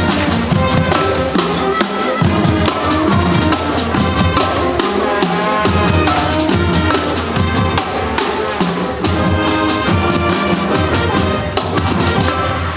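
Lively band music with brass and drums, drum hits keeping a steady beat under the horns; it breaks off right at the end.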